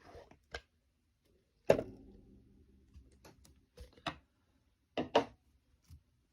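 A series of sharp knocks and clicks from objects being handled. The loudest is a thud about two seconds in that rings on briefly.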